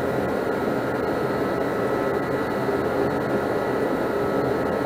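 Steady whooshing background noise with a few faint steady hum tones, unchanging throughout, like a fan or blower running in the shop.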